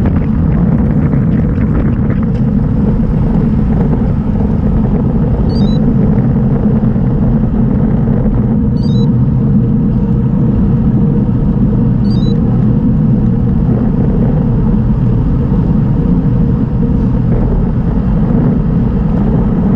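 Steady low rumble of wind buffeting a bicycle-mounted camera's microphone, mixed with tyre noise on an asphalt road while riding at speed.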